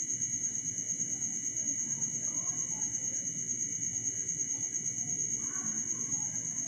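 Crickets trilling steadily at a high pitch over a low background hiss.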